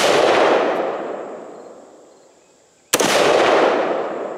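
AR-15 rifle firing 5.56 rounds one at a time. The long rolling echo of a shot fired just before fades out, then a single sharp shot comes about three seconds in, its echo rolling away over the next second or two.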